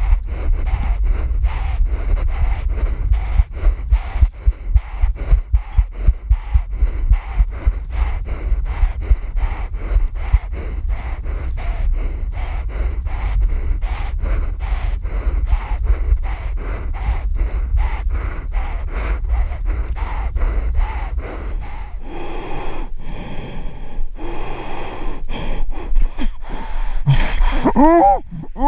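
A man's rapid, heavy breathing and gasping close to a body-worn camera's microphone, about two to three breaths a second, over a low wind rumble on the microphone. Near the end a short pitched vocal cry glides up and down.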